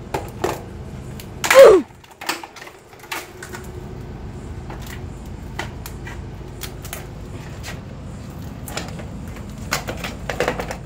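A MacBook Pro screen slammed down onto a brick on concrete, with one loud crash about one and a half seconds in, followed by scattered clicks and crackles of shattered screen glass being handled and peeled off.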